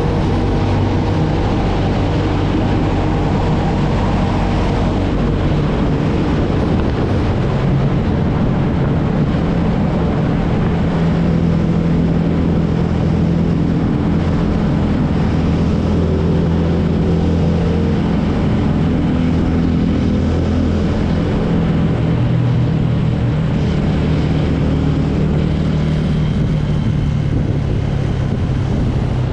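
TVS Ronin's single-cylinder motorcycle engine running steadily under way, its note shifting pitch a few times with the throttle, under a steady hiss of noise.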